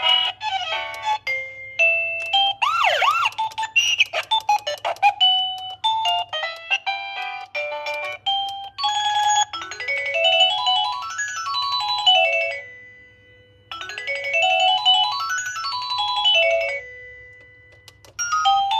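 Electronic doorbell chime playing its stored melodies one after another: short tunes of stepped beeping notes, a sliding warble about three seconds in, then twice a fast run of notes climbing and falling, each about three seconds long, with a brief held tone between. A steady low hum runs underneath.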